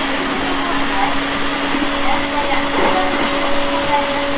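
Onboard running sound of a JR East 701 series 5500-subseries electric train under way: a steady hum of motors and wheels on rail, with a low steady tone and a higher tone that joins about halfway.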